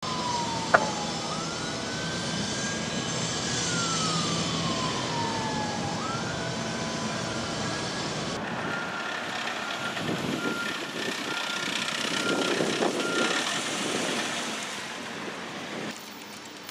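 Traffic and heavy vehicle noise with an engine hum, and a tone that slides down, up and down again over the first few seconds. In the middle, a vehicle's reversing alarm beeps in an even rhythm for about five seconds.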